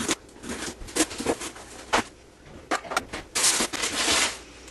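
A cardboard shipping box being handled and opened: scattered knocks and clicks, then a longer rustling noise about three and a half seconds in.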